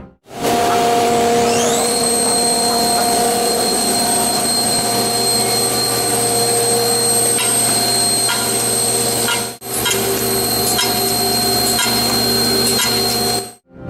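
Gun drilling machine running: a steady loud machining noise, with a high spindle whine that rises about a second and a half in and then holds steady. The noise cuts out briefly about halfway through.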